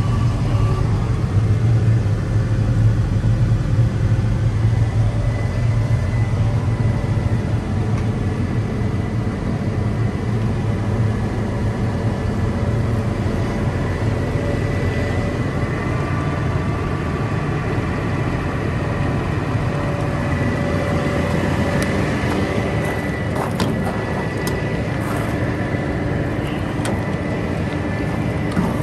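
The 6.7L Cummins diesel of a Freightliner M2 truck idling steadily, with a few sharp clicks toward the end.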